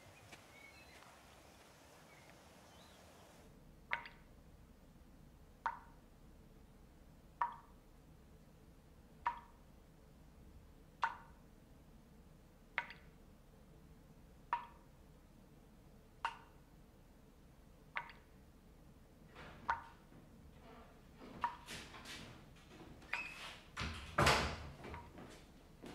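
Drops of liquid falling one at a time from a metal spout into a glass jar of dark red liquid, each a short plink, about one every two seconds. Near the end come a few irregular clicks and knocks, the loudest about two seconds before the end.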